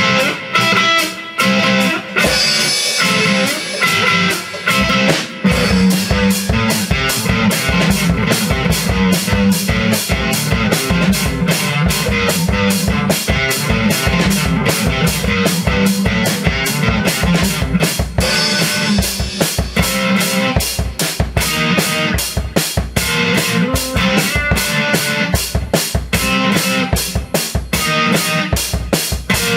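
A rock jam on drum kit and guitar: a few stop-start hits at first, then fast, steady drumming over guitar from about five seconds in.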